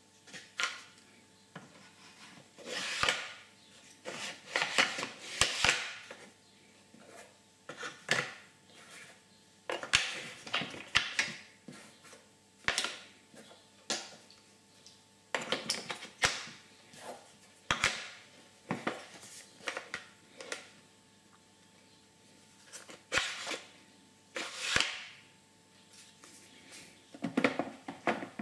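Metal lathe change gears and tool bits clinking and scraping as they are set down in a beech-wood organizer tray, a string of separate clicks and knocks with short pauses between. Near the end the wooden drawer holding the tray slides shut.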